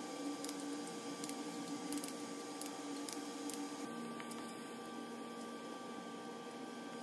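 Steady shop hum with scattered light metal clicks in the first half, from hand tools worked on a bare LS engine block.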